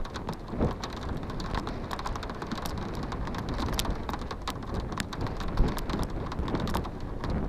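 Steady rain, with many sharp drops hitting a hard surface close to the microphone, several a second, over a low rumble.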